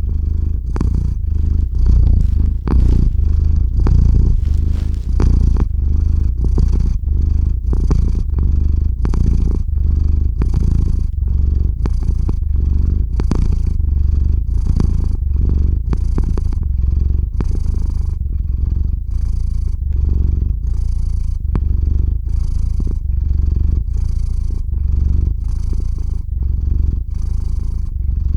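Domestic cat purring steadily, close up against the microphone: a deep continuous rumble that swells and eases in an even rhythm with each breath.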